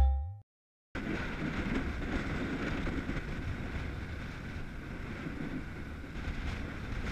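A deep electronic boom with a ringing tone dies away in the first half second. After a brief silence, gale-force wind (9 Beaufort) buffets the microphone over choppy, whitecapped water as a steady rushing rumble.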